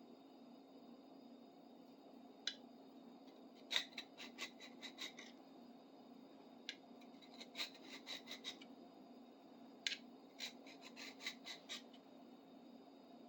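Hand file scraping across a screwdriver's steel tip in short, quick strokes: three bursts, each a single stroke followed by a run of about five to seven strokes, over a faint steady hum.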